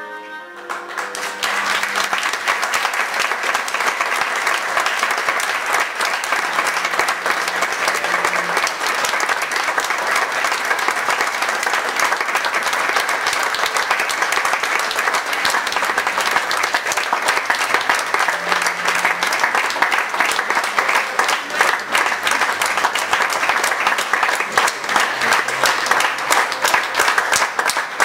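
Audience applauding: a long, steady round of clapping that swells up about a second in as the closing music fades out.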